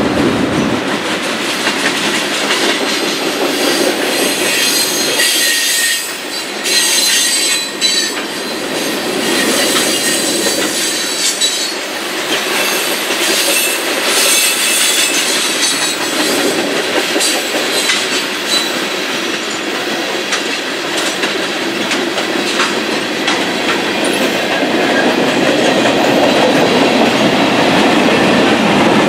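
Union Pacific mixed freight train's cars rolling past close by. Tank cars and covered hoppers clatter and click over the rail joints, with thin high wheel squeals through the middle stretch.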